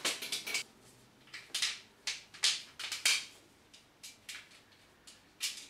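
Scattered light clicks and clinks of metal stand legs and a cross piece being handled and fitted together, about eight short knocks spread through.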